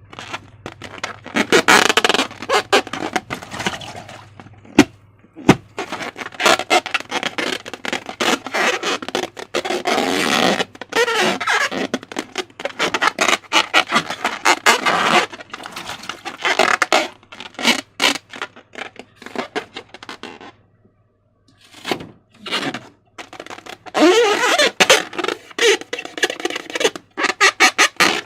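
Slime being squeezed and stretched by hand: a dense run of wet clicks, crackles and squelches, pausing for about a second roughly two-thirds of the way through.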